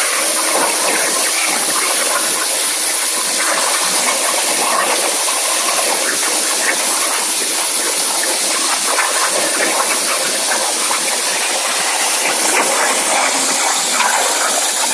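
Hypertherm Powermax 125 plasma torch cutting metal on a CNC table: a steady, loud hissing arc with fine crackle and a high, piercing edge.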